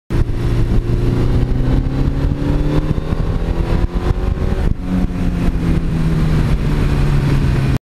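1982 Suzuki GS1100E's air-cooled inline-four running under way, over a steady rush of wind noise. The engine note climbs slowly for the first three seconds as it pulls. After a break about three seconds in, it holds a steady, lower pitch.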